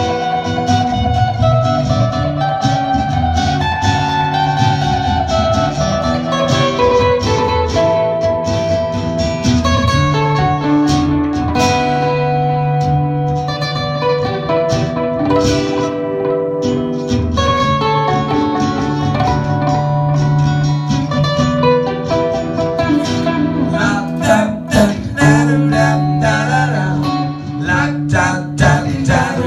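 Live acoustic band music: an instrumental passage led by plucked guitar.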